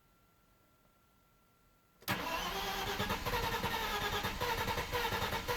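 Audi A4 B5 2.8 V6 being cranked on the starter. It starts suddenly about two seconds in and goes on as a steady rhythmic cranking without catching. It is a no-start that was traced to bad petrol.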